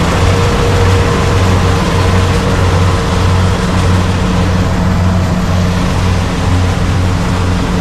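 Engine of a rice harvesting machine running steadily and loudly, with a deep hum that pulses in level.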